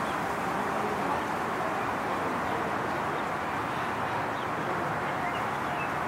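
Steady outdoor background noise, an even hum with no single source standing out, with a few faint bird chirps over it.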